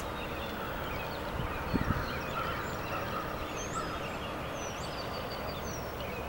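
Outdoor riverside ambience with birds calling: short high chirps and whistles from small birds and a distant fowl calling, with a soft thump just under two seconds in.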